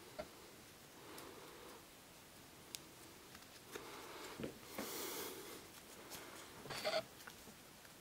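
Faint handling noise as a nylon NATO watch strap is threaded and buckled on the wrist: a few light clicks, a soft rustle about halfway through, and a louder little clatter of clicks near the end.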